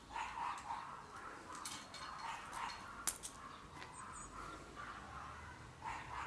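Light clinks and clicks of a pony's driving harness and its buckles being handled and adjusted, the sharpest click about three seconds in, over faint animal calls in the background.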